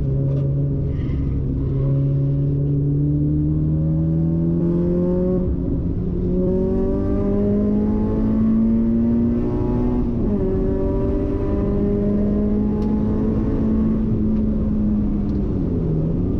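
Nissan SR20VE 2.0-litre four-cylinder engine pulling hard under acceleration, heard from inside the stripped race car's cabin. Its pitch climbs steadily for about ten seconds, drops suddenly at an upshift, then holds fairly level as the car keeps gaining speed.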